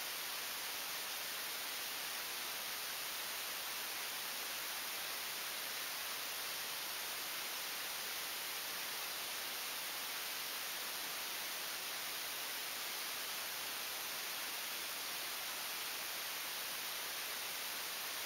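Steady, even hiss like static, unchanging throughout, with no other sound standing out.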